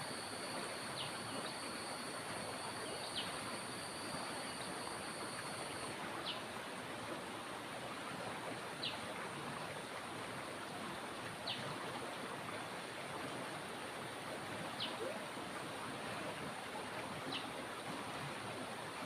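Steady rush of flowing stream water, with a short high chirp repeating every two to three seconds and a thin, steady high whine that stops about six seconds in.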